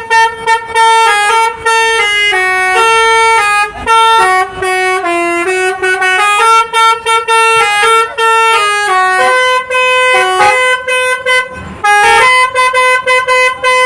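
Basuri telolet multi-tone bus horn playing a tune: a rapid run of short notes stepping up and down, phrase after phrase, with brief breaks between them.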